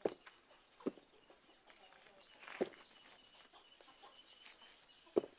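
A chicken clucking: four short clucks at irregular spacing, the last one the loudest.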